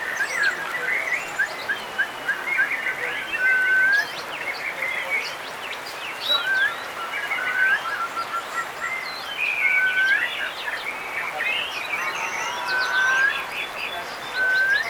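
Many caged songbirds singing at once in a contest, with dense overlapping chirps, trills and short rising whistles all through.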